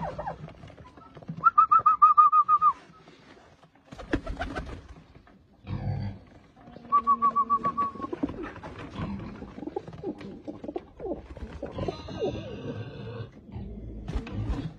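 A flock of Botoșani tumbler pigeons cooing. Twice a quick run of short, evenly spaced high notes rings out, each about a second long: a loud one about a second and a half in and a fainter one about seven seconds in.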